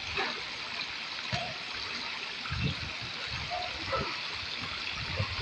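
Steady rush and trickle of water in a swimming pool, with light splashing from people wading, and faint voices in the background.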